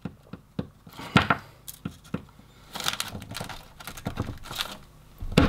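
Kitchen knife cutting through a small chocolate-coated candy ball on a plastic cutting board: irregular sharp clicks and taps of the blade against the board and the hard chocolate shell, with brief crackles.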